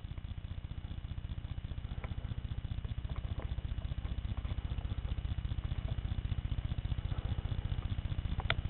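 An engine running steadily, a low, even, rapid throb that grows slightly louder, with a few faint clicks over it.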